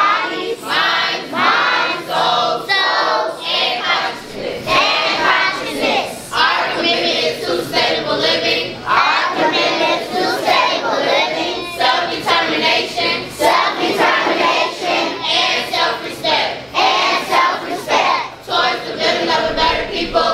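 A large group of teenage students chanting a pledge together in unison, many voices speaking the lines phrase by phrase with short pauses between them.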